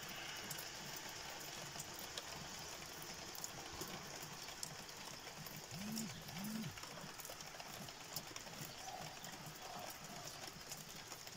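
Steady rain falling, with scattered drips ticking close by. About six seconds in come two short, low calls, one right after the other.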